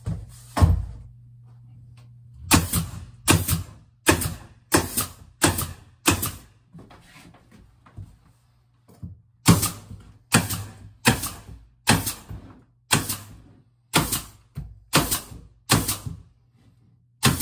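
Pneumatic stapler firing staples through plywood paneling into wood framing: a quick series of sharp shots, each with a brief hiss, about one every 0.7 s, in two runs with a pause of about three seconds between. A low steady hum runs underneath.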